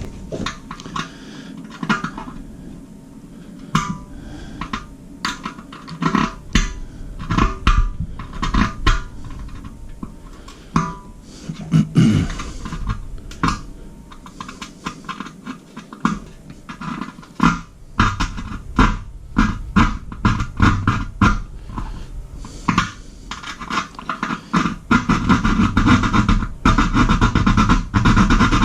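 Background music, a tune of quick, sharp note strikes that grows louder and fuller in the last few seconds.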